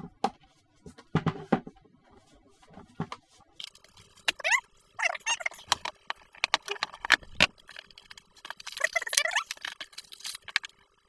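Clicks and knocks from hands handling a plastic speaker, then, after a cut, a faint steady hum with several short squeaky gliding sounds as packaging and a power adapter are handled.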